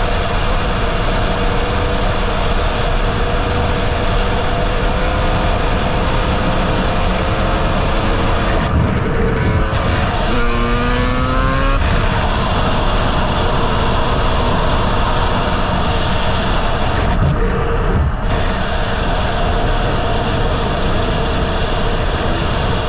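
Honda CR250R two-stroke single-cylinder dirt bike running under way on the road, with wind noise on the microphone. About nine seconds in the engine note drops off briefly and then the revs climb again; a similar short dip comes a few seconds before the end.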